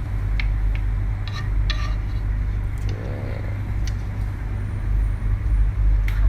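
Steady low hum of a fan or extractor running, with a few light clinks of utensils or dishes scattered through it.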